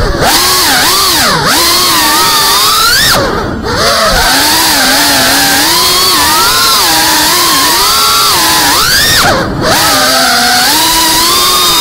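GEPRC Cinelog35 FPV drone's brushless motors and propellers whining, the pitch rising and falling constantly with the throttle. Twice, about three and a half and nine and a half seconds in, the whine drops away briefly as the throttle is cut for a dive or flip, then surges back.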